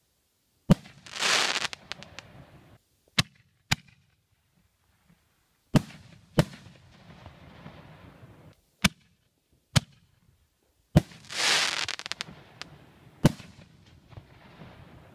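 Aerial firework shells bursting: about nine sharp bangs at uneven intervals. Two of them, about a second in and near the end, are followed by a second or so of loud crackling hiss.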